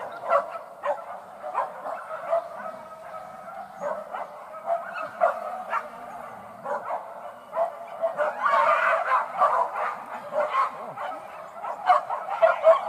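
Hunting dogs yelping and barking over and over while chasing wild boar, a thick run of overlapping yelps about eight seconds in and again near the end.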